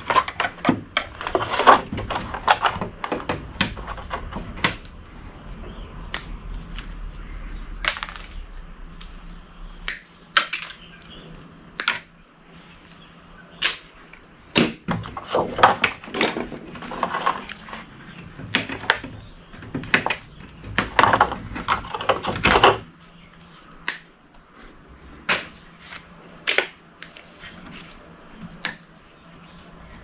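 Irregular clicks, knocks and clatter of an Ethernet power switch's metal chassis and circuit board being handled and pulled apart by gloved hands, coming in clusters with quieter pauses between.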